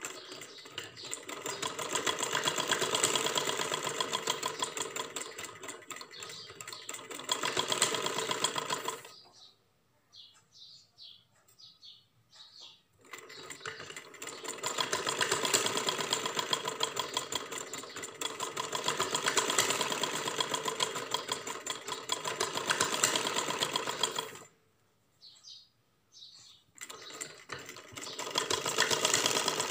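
Sewing machine running in a fast, even rattle as it stitches a seam through fabric, stopping twice for a few seconds, about a third of the way in and again near the end.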